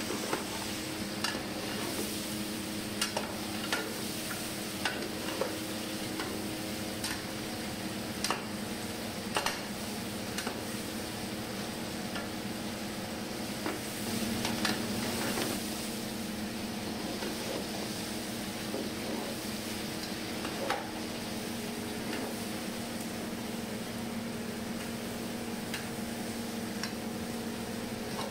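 Mutton pieces and fried onions sizzling in oil in a large aluminium pot while a long metal spatula stirs them, clicking and scraping against the pot again and again, over a steady low hum. This is the meat browning in plenty of oil after the onions have gone golden.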